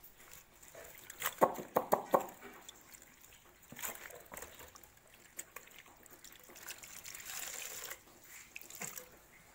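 Wet, dripping sounds as a fighting rooster is massaged with a towel soaked in warm herbal water and rubbed by hand. A quick run of sharp clicks comes about a second and a half in, and a rustling hiss follows later.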